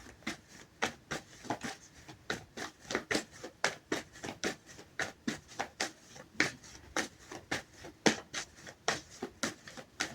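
Tarot cards being shuffled by hand: a steady run of crisp card slaps and riffles, about three a second.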